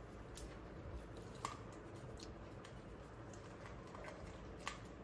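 Faint, scattered clicks and soft ticks of people eating rice by hand, with a small salt shaker being shaken over a plate, against quiet room tone.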